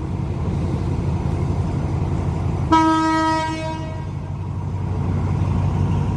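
A diesel locomotive horn sounds one blast about a second long, about three seconds in, over the steady low rumble of an idling diesel train standing at the platform.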